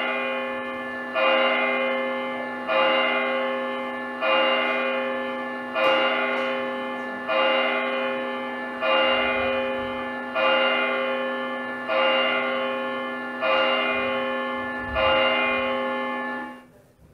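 A church bell tolling, eleven strokes about one and a half seconds apart, each ringing on into the next; the ringing cuts off abruptly near the end.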